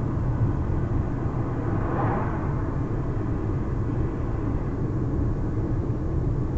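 Road and engine noise inside a moving car's cabin: a steady low rumble, with a brief swell of louder noise about two seconds in.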